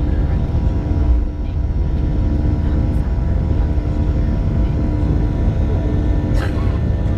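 Boeing 737 jet climbing out just after takeoff, heard inside the cabin: a steady engine and airflow rumble with several steady engine tones. A brief sharp sound near the end.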